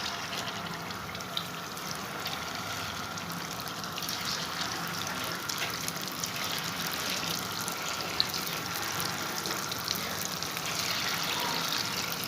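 Pieces of sweet yeast dough frying in hot oil: a steady sizzle full of fine crackles, getting a little louder about four seconds in.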